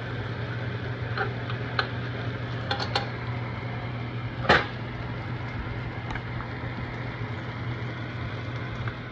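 Dogfish fillets sizzling gently in butter in a nonstick frying pan, over a steady low hum. There are a few light clicks, and about four and a half seconds in a sharper knock of a utensil against the pan.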